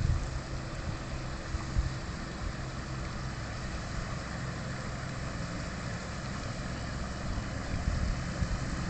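Outboard motor of an approaching 30-foot pontoon boat running steadily: a low, even hum over a steady hiss.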